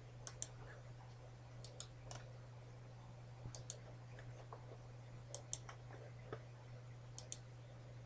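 Computer mouse button clicked about six times, each click a quick press-and-release pair, over a steady low electrical hum.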